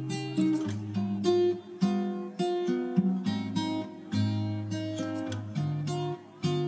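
Background music on acoustic guitar: plucked notes and chords, a new one about every half second.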